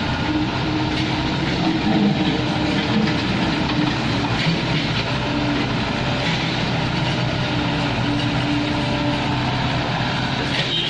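Heavy diesel construction machinery running steadily, with a continuous engine drone and clatter.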